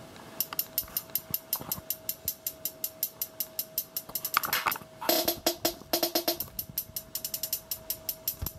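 A hip-hop beat made in GarageBand's Live Loops playing from an iPad: fast, even hi-hat-like ticks, about five a second, with a short run of repeated pitched notes about halfway through.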